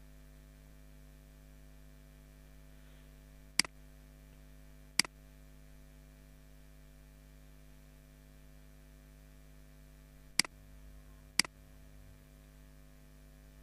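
Steady electrical mains hum with four sharp computer-mouse clicks: two about a second and a half apart, then two more a second apart later on.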